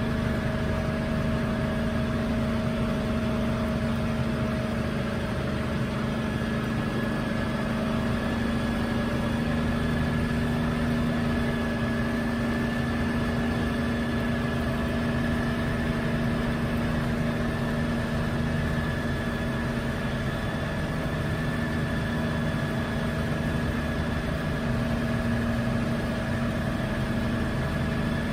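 1962 Hiller UH-12E helicopter's Lycoming VO-540 piston engine and rotors running steadily, heard from inside the open-bubble cockpit, with a small shift in pitch about eight seconds in.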